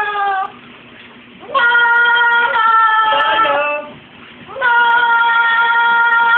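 A pet singing in long, steady held notes, three in a row with short breaks between them; the first one drops in pitch as it ends, and the middle one wavers.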